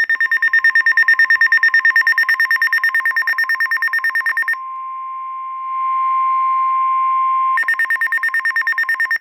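Emergency alert tones: a loud, rapidly pulsing electronic beep, then a steady single tone for about three seconds, then the rapid pulsing again until it cuts off abruptly. The tones signal a new warning coming in, a special marine warning.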